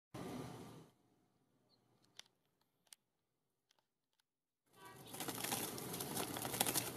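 Juvenile western kingbird beating its wings against twigs and a wall in a failed flight attempt: a rapid rustling flutter starting about five seconds in. Before it, a short rustle and a few faint clicks.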